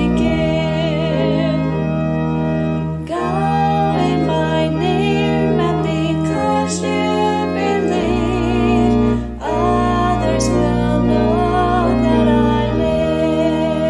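Organ music with sustained low bass notes that change every few seconds under held melody notes with vibrato, and singing along.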